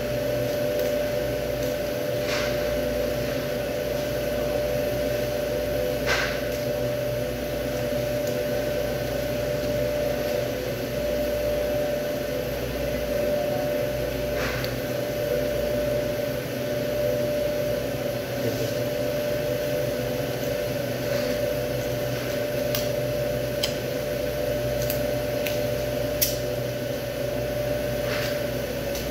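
Steady machine hum holding one constant mid-pitched tone, with a few short faint clicks as a knife works meat off beef rib bones.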